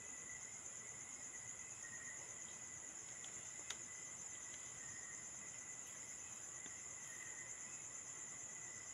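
Steady chorus of night insects, crickets among them: a continuous high pulsing trill with a thinner, lower steady note beneath it. A single faint click a little past the middle.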